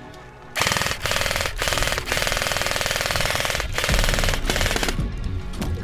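Airsoft L86-style light support gun firing full-auto: a fast rattle in a string of bursts with short breaks, starting about half a second in and stopping about a second before the end.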